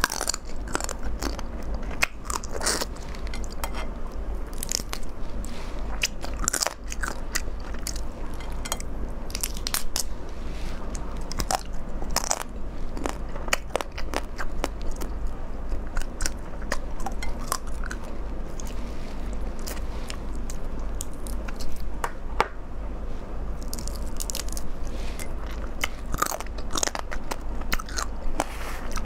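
Close-miked biting and chewing of crab: irregular crunches and sharp clicks as shell and flesh are bitten, with wet mouth sounds, over a steady low hum.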